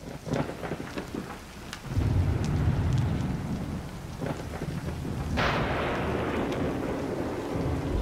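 Thunderstorm sound of rain and thunder: scattered crackling at first, then a deep rumble sets in about two seconds in, and a sharp thunderclap breaks about five and a half seconds in and rolls away.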